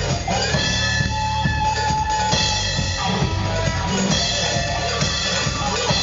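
Rock music with a drum kit keeping a steady beat under sustained guitar notes.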